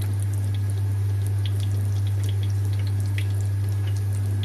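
A steady low hum under faint, scattered crackles and ticks: tomato-and-garlic sauce with oil starting to sizzle in a pan on the stove.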